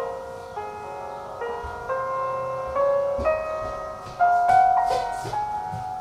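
Bell-like ringing notes struck at irregular intervals, each holding and overlapping the next as it fades, with several notes in most seconds.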